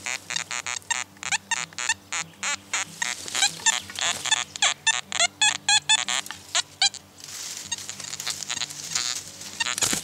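Metal detector giving rapid, warbling target beeps as its search coil is swept back and forth over a strong buried signal, the beeps stopping about seven seconds in.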